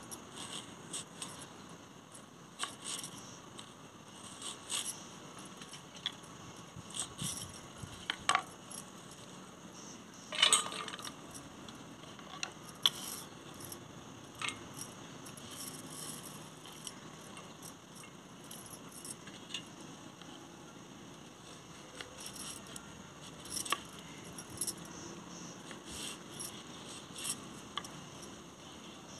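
Kitchen knife chopping onion on a round wooden cutting board: scattered sharp taps at an uneven pace, with a louder clatter about ten seconds in.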